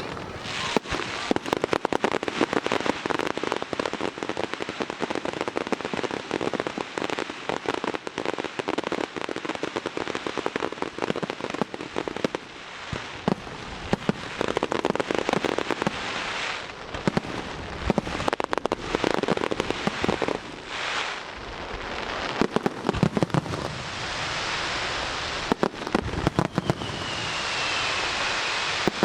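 A fireworks display with aerial shells bursting: many sharp bangs and dense crackling come in rapid, uneven volleys. A faint falling whistle sounds near the end.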